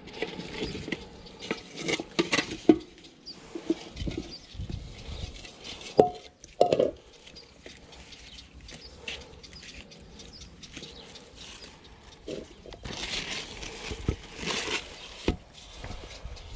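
Cucumbers being tipped out of a plastic bucket and handled on a concrete floor: scattered knocks and thuds, the loudest about two and six seconds in. A stretch of rustling follows near the end.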